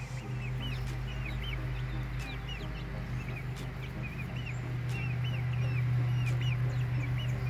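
Young chickens peeping over and over, short rising-and-falling chirps several a second, over a steady low hum.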